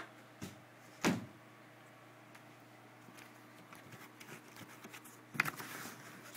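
A few dull knocks of a cardboard box being handled and set down, the loudest about a second in, then scraping and rustling of cardboard and foam packing near the end.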